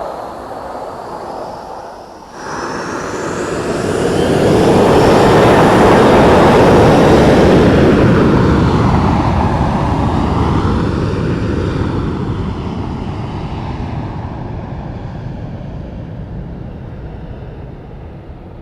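Jet airliner's engines at takeoff power very close by: a whining rumble that swells sharply about two seconds in, peaks loudly, then fades slowly with a falling pitch as the aircraft moves away.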